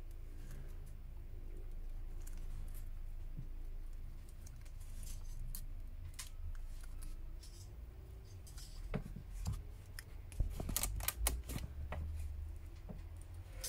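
Thin metal prying blade sliding and scraping along the glued edge of a smartphone's glass back cover as it cuts through the adhesive. A run of sharp clicks and ticks comes a little past the middle.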